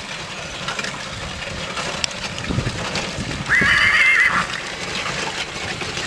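A draught horse whinnies once, a high, wavering call lasting just under a second, a little past halfway through, over steady background noise.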